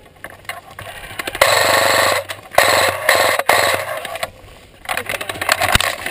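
Airsoft M249 SAW electric gun firing on full auto, very close: three loud short bursts of fast mechanical rattle, each about a second long, then a quieter rapid rattle near the end. The gun is feeding badly; it is called jamming right afterwards.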